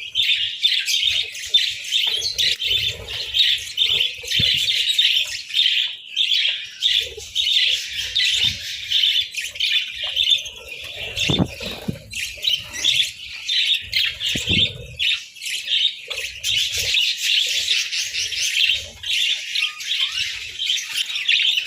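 A flock of budgerigars chirping and chattering continuously in a dense, rapid stream of high chirps. A few low knocks sound in the middle.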